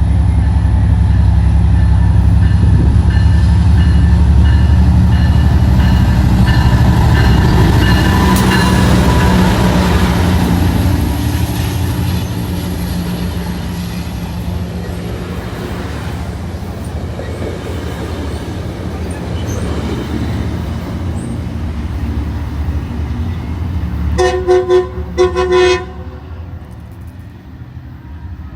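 Push-pull passenger train with a Rotem cab car rumbling loudly past, with a regular dinging over the first several seconds; the rumble fades as it moves off. Near the end its horn sounds in a quick series of short toots.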